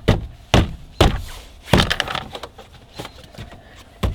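A series of sharp thunks and knocks on a Honda Civic's door trim: about four in the first two seconds and one more near the end, as the panel is pressed and knocked into place to seat it.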